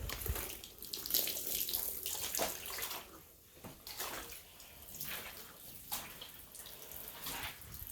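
Water splashing and sloshing in uneven bursts, a few to the second with brief lulls between them.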